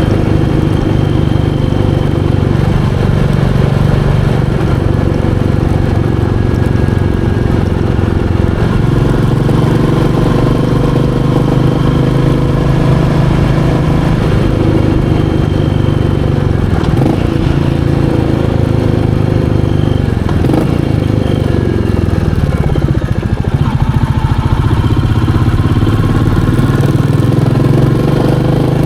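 Royal Enfield Meteor 350's single-cylinder engine running steadily while riding. Past the middle the engine note falls several times as the bike slows, then climbs again near the end.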